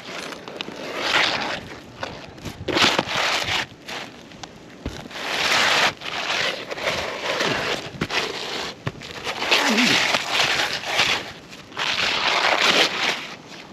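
Asphalt roof shingles being pried and worked by hand: repeated gritty scraping and crackling in bursts every second or two.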